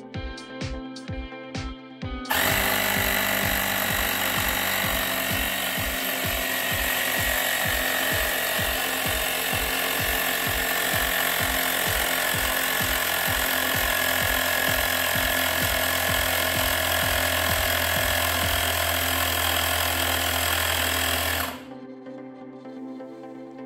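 Cordless portable tyre compressor running: a loud, steady mechanical buzz that starts about two seconds in and stops abruptly near the end, with background music underneath.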